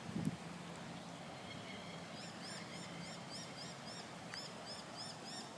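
A brief low thump right at the start, then a bird calling a rapid run of high chirping notes, about four a second, in two bursts, over faint steady outdoor noise.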